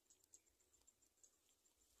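Near silence, with a few faint scattered clicks.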